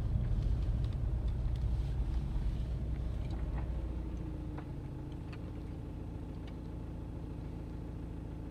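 Car engine and road rumble heard from inside the cabin, fading as the car slows down. About halfway through it settles to a quieter, steady engine hum.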